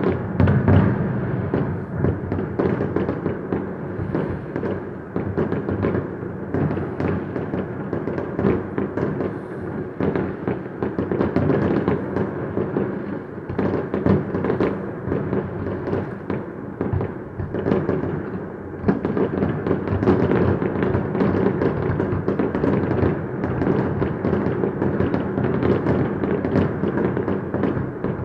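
Fireworks display: aerial shells bursting in rapid, unbroken succession, many bangs overlapping into a continuous rumble with crackle on top.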